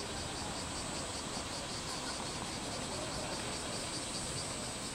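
Insects calling: a high buzz pulsing about five times a second over a steady, even higher whine, with a low background rumble.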